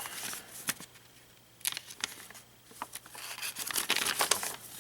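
Paper rustling and crinkling as the pages of an instruction manual are handled and turned, in a few short bursts with a longer, louder stretch near the end.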